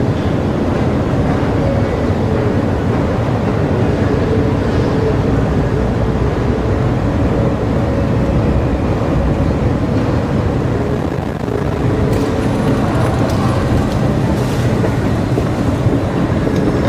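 Escalator running: a steady low rumble with a faint wavering hum. A few light clicks and hiss join in over the last few seconds.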